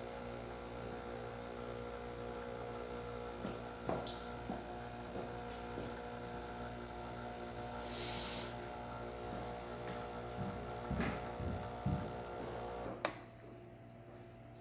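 Breville espresso machine's vibratory pump humming steadily while pulling a test shot, then cutting off with a sharp click about 13 seconds in, when the shot ends. A few soft knocks come just before it stops.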